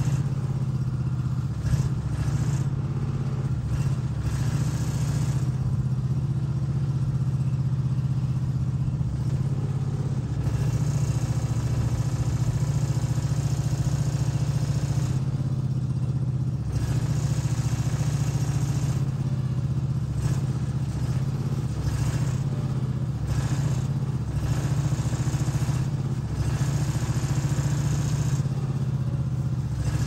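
Small engine of a yellow shed-moving machine running steadily as it works against the shed, a constant low hum.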